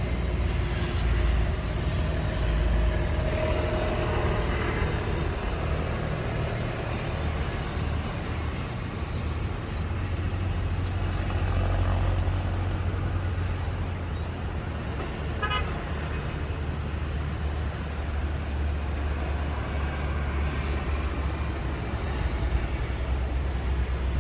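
Steady low engine rumble from buses and ground vehicles on an airport apron, with a brief horn toot.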